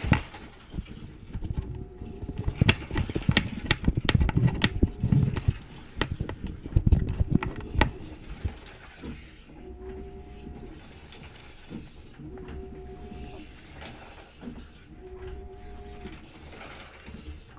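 Washing machine running a wash cycle: the drum motor hums in short runs, about one every two and a half seconds, as it turns the drum back and forth. A busy clatter of knocks is loudest in the first half.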